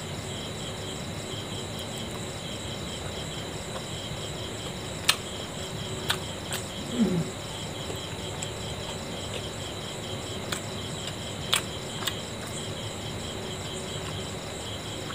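Crickets chirping steadily in an even, pulsing rhythm, with a few sharp mouth clicks and smacks from chewing a momo and a brief low hum about seven seconds in.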